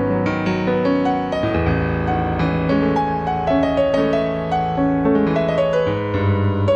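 Digital stage piano being played in an improvisation: low notes held under a moving line of higher notes that change several times a second.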